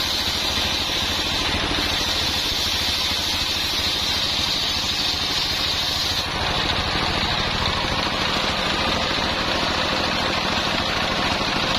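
Engine-driven homemade circular sawmill running steadily, its belt-driven blade sawing coconut-palm wood into beams and rafters. The bright high part of the sound fades about six seconds in while the engine runs on.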